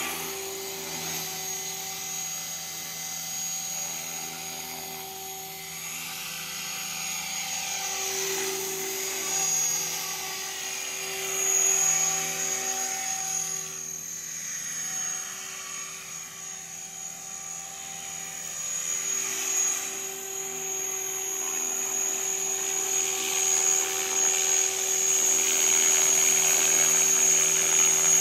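Align T-Rex 500 electric RC helicopter flying: steady rotor hum with a high motor and gear whine. It gets louder over the last several seconds as the helicopter comes close and hovers over the pad.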